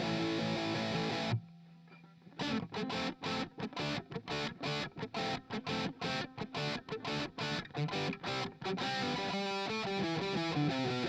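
Distorted electric guitar through a Cuvave Cube Baby amp modeller, recorded direct. Ringing chords stop abruptly about a second in, followed by a brief pause, then a long run of short, choppy staccato chords, and ringing notes near the end.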